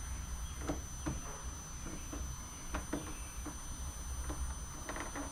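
Faint scattered clicks and taps of hands working under the plastic speaker pods of a motorcycle fairing, trying to pry them loose, over a steady low hum.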